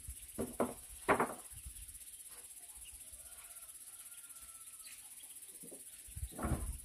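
Steady high-pitched buzz of insects. A few short, sharp noises come about half a second to a second in, and a cluster returns near the end.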